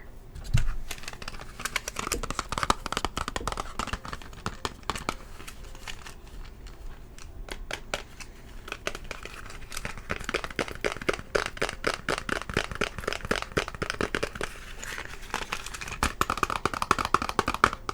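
Chalk scratching on a chalkboard in quick, dense scratchy strokes, heavier in the second half, with a dull knock about half a second in.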